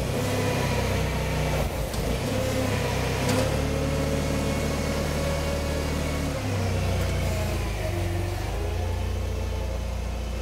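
Toyota 7FGF15 LPG forklift engine running, its pitch rising and falling as the truck works the forks and sets down a pallet, then steadier as it drives off.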